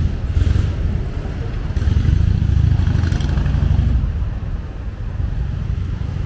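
Road traffic passing on a city street, a motor vehicle's engine the loudest part, easing a little about four seconds in.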